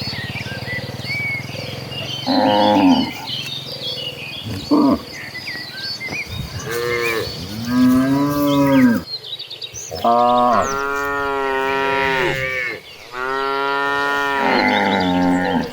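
Several cattle mooing one after another, each call a long rising-and-falling low, the calls coming longer and louder and overlapping from about ten seconds in. Small birds chirp faintly in the first half.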